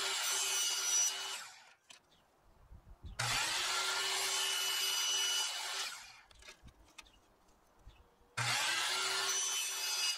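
DeWalt sliding compound miter saw cutting thin strips of luan plywood in three separate cuts. The motor starts sharply, runs with a steady whine through each cut and winds down: the first run stops about a second in, the next goes from about three to six seconds, and the last starts about eight and a half seconds in. Light knocks of the wood being handled fall between cuts.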